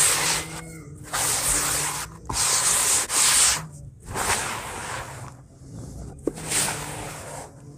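Dry cement powder being scooped, rubbed and poured through bare hands: several gritty hissing rushes, each up to about a second and a half long, with short quiet gaps between them.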